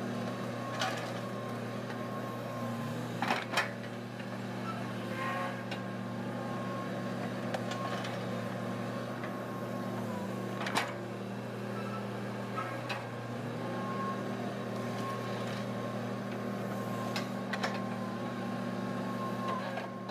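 Sumitomo SH210 excavator's diesel engine running steadily, its pitch shifting a few times as the hydraulics take load while it digs and swings, with a thin steady whine above it. Scattered sharp knocks and clatters of the bucket and soil striking the dump truck's bed, the loudest twice a few seconds in and once about halfway through.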